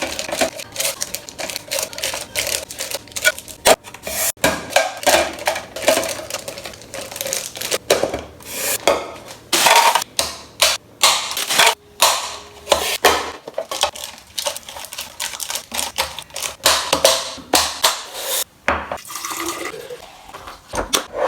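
Snack packets and containers being handled and put away: many sharp clicks and clatters of items set down, with stretches of crinkly wrapper rustling.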